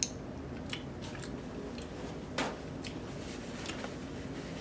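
Close-up wet eating sounds: chewing, lip smacks and finger-licking of sauce-covered snow crab, a scatter of small clicks with a sharper smack about halfway through.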